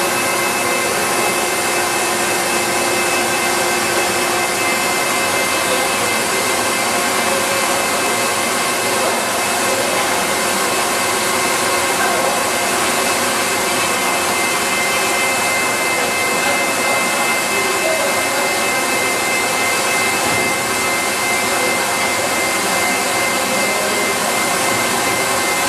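Steady, loud drone of process-plant machinery, electric motors and pumps running, with high steady whine tones over a continuous hiss; the highest whine grows stronger about halfway through.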